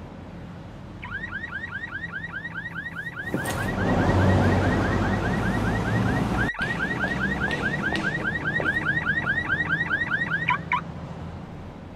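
Electronic car alarm sounding a rapid repeating chirp, about six or seven a second, starting about a second in and stopping near the end. A rushing noise swells under it for a few seconds in the middle.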